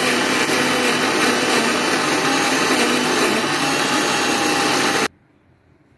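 Prestige electric mixer grinder running at full speed, its steel jar grinding garlic with salt and ground ginger into a thick paste without water. It is switched off about five seconds in and stops suddenly.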